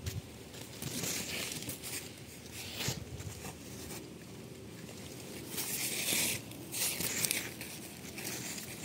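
Eggplant leaves rustling and crinkling in several short bursts as a hand pushes through and handles the plants close to the microphone.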